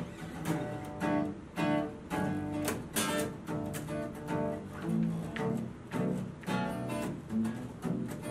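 Two acoustic guitars strumming chords together in a steady rhythm, about two strums a second.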